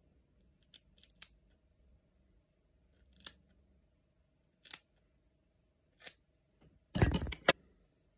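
Scissors snipping through a fringe of hair as bangs are cut: single sharp snips spaced a second or more apart, then a louder, fuller burst of cutting and handling noise about seven seconds in.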